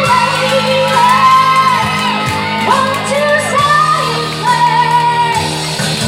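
Live rock band playing a power ballad, with sustained bass notes and a sung or shouted melody line that bends and glides in pitch.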